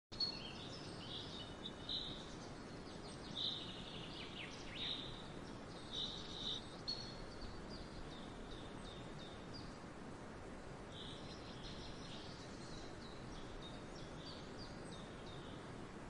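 Wild birds giving many short, high chirps and calls over a steady outdoor background hiss. The calls come thickest in the first seven seconds and again from about eleven seconds on.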